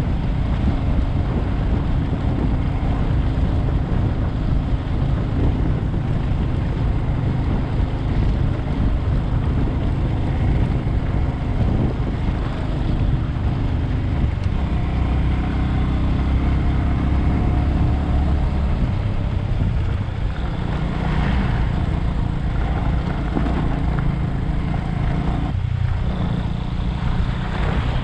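Bajaj Avenger 220 motorcycle's single-cylinder engine running steadily while riding, with continuous road and wind noise; the engine note shifts about halfway through.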